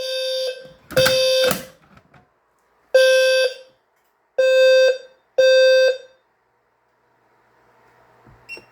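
Fire alarm horn sounding in loud, buzzy, half-second blasts: a group of three, a pause, then three more, and it stops about six seconds in. A faint hiss and a small click follow near the end.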